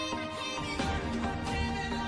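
Background music: dense instrumental music with sustained melodic notes.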